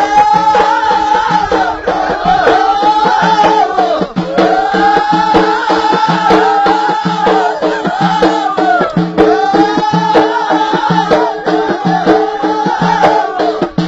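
Ahidous, the Amazigh (Berber) folk song of the Middle Atlas: a chorus of voices sings arching phrases about two seconds long, repeated one after another, over bendir frame drums beating a fast, steady rhythm.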